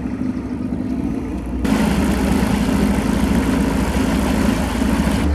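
An engine running steadily with a low hum. About one and a half seconds in, the sound abruptly gets louder and noisier.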